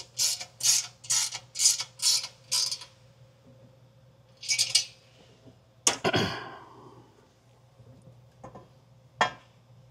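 A ratchet worked in quick, even strokes, about two and a half a second, stopping about three seconds in. Then a single loud metal clank that rings on briefly, followed by a couple of light knocks.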